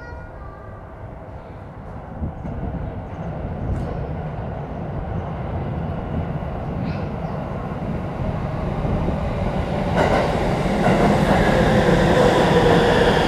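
Shin-Keisei 8800 series electric train with Mitsubishi full-SiC VVVF inverter drive pulling into the platform. Its low rumble grows louder. From about ten seconds in, as the train draws level, the steady whine of the inverter and motors rises over it.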